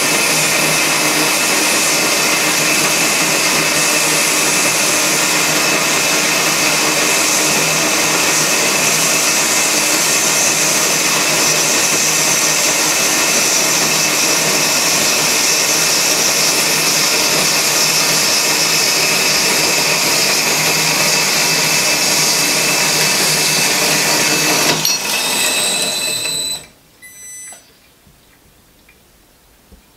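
Homemade metal-cutting bandsaw running its blade through a metal bar under a stream of coolant: a loud, steady hiss with a whine. The sound changes briefly, and the saw stops about four seconds before the end.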